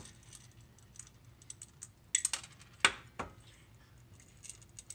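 Scattered small clicks and taps of chocolate chips and a nonstick frying pan, busiest about two seconds in, with one louder knock near three seconds.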